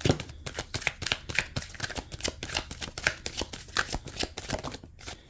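Tarot deck being shuffled by hand, a fast run of card clicks and riffles that stops about five seconds in.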